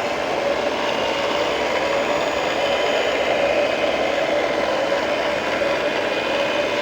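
Radio-controlled model construction machinery running steadily: a mechanical hum with a mid-pitched whine that wavers slightly in pitch, and a faint rattle.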